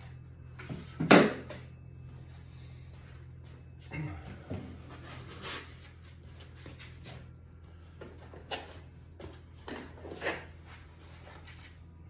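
Packing material being handled in a wooden shipping crate: foam and small cardboard boxes rustling and knocking in a series of short, sudden sounds, the loudest a sharp knock about a second in. A steady low hum runs underneath.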